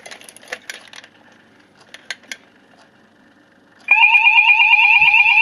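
A few light clicks as a manual call point is worked with a test key, then about four seconds in the fire alarm sounders start together with a loud, fast-warbling alarm tone.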